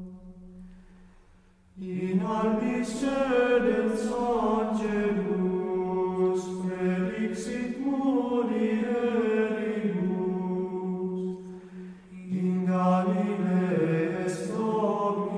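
Plainchant sung by a single voice in slow, flowing melodic phrases. It begins about two seconds in after a near-silent pause, and breaks off briefly for a breath around twelve seconds in.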